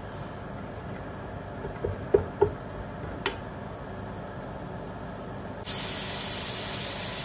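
A few light clicks and knocks, then, a little over five seconds in, a loud steady sizzling hiss sets in suddenly: chopped carrots frying in olive oil in a pot over high heat.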